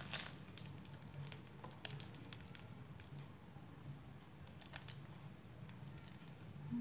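Faint crinkling and soft squishing of a plastic piping bag squeezed by hand as buttercream leaves are piped, small scattered clicks over a low steady hum.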